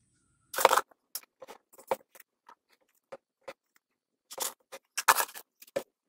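Small paper sweetener packets being handled: scattered light clicks, taps and rustles. There is a brief rustle about half a second in and a cluster of taps near the end.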